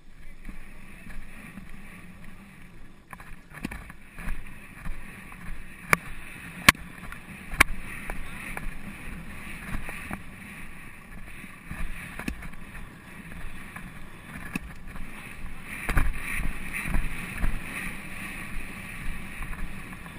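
Movement and wind noise of a polo pony being ridden across grass, picked up by a rider-mounted GoPro: a steady, muffled rumble of hoofbeats and rushing air, with several sharp knocks a second or more apart about six to eight seconds in and again later.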